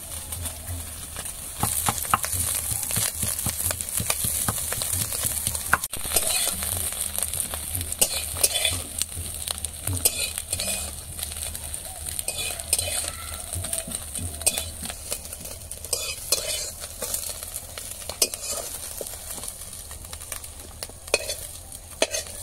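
Small fried fish sizzling in hot oil in a metal wok, with a metal spatula scraping and clinking against the wok as the fish are stirred and lifted out. The sizzle is loudest in the first few seconds and eases toward the end.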